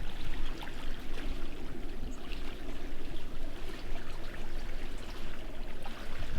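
Water lapping and trickling steadily, with many small splashes.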